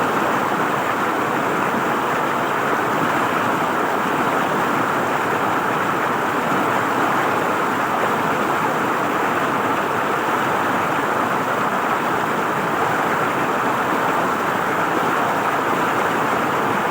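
River water flowing over its bed: a steady, unbroken rush of water.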